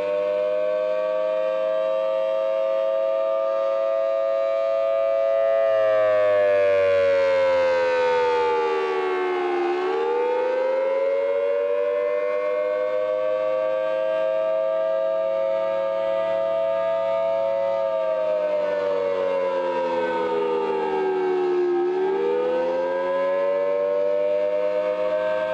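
Outdoor civil defense (tornado warning) siren sounding a wail. Its tone holds high, slides down over a few seconds and climbs back up, twice.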